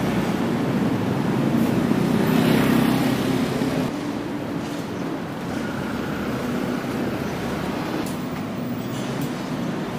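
Steady rumbling noise of a moving vehicle, louder for a moment about two to three seconds in.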